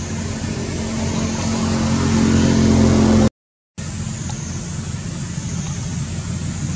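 A motor vehicle engine runs with a steady low hum and grows louder. About halfway through the sound cuts out for half a second, and then a steady rumbling background noise follows.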